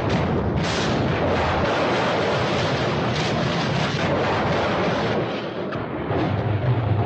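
A loud, continuous roar of cartoon sound effects, like a huge explosion or rush of floodwater. It dips briefly about five and a half seconds in, and a low hum joins near the end.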